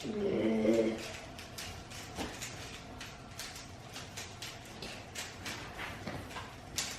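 Plastic Rubik's Cube being turned in a speed solve: irregular sharp clicks and clacks of the layers snapping round. A brief pitched voice-like sound in the first second.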